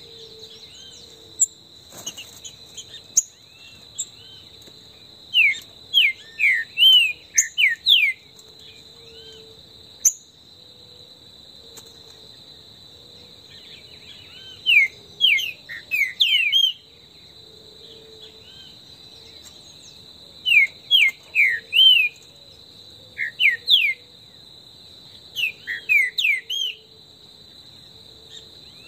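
Green-winged saltators (trinca-ferro) singing five short phrases of loud, clear whistled notes that slide up and down, with pauses of several seconds between phrases. A steady high insect drone runs underneath.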